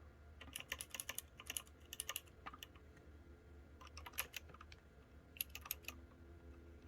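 Typing on a Matrix 65% mechanical keyboard with PBT keycaps: about four short bursts of quick keystrokes.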